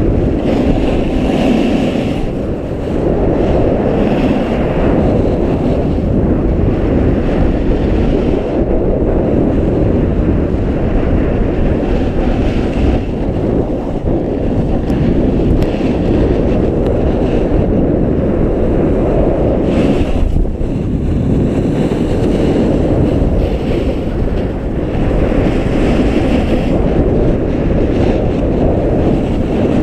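Wind buffeting an action camera's microphone during a snowboard run, a loud steady rush, mixed with the hiss of the snowboard sliding over packed snow.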